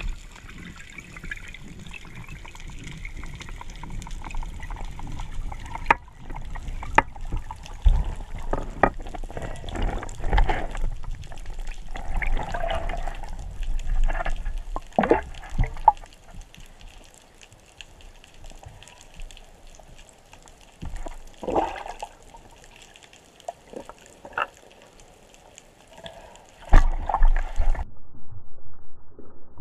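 Underwater sound picked up through a waterproof camera housing: muffled swirling water and bubbles, broken by scattered sharp clicks and knocks, with the loudest knock near the end.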